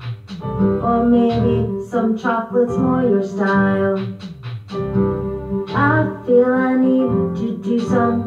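A song: a woman singing a melody with instrumental backing.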